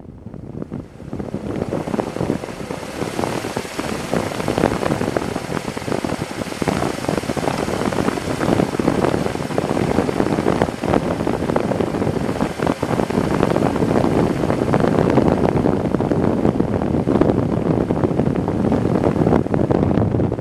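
Wind buffeting the microphone of a handlebar-mounted camera on a bike riding a dirt road, mixed with the rumble of the ride over the rough surface. It builds up over the first two seconds, then stays loud and steady.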